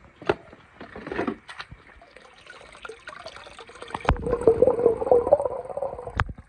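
Water running over a wet plastic pool slide with a few light plastic knocks as a toy engine is pushed onto it, then a sudden plunge into a swimming pool: muffled underwater bubbling and churning for about two seconds that cuts off abruptly.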